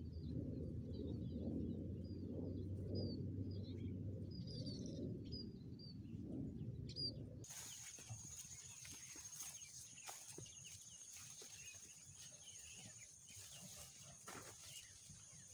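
Birds chirping over a low rumble. After a sudden cut about halfway through comes a steady high-pitched insect drone, with scattered rustles and steps of feet brushing through tall grass.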